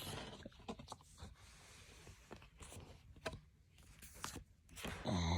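Faint handling noise from a CD box set and its booklets: soft scrapes and rustles with a few scattered light clicks of cardboard and paper. A brief low voice sound comes near the end.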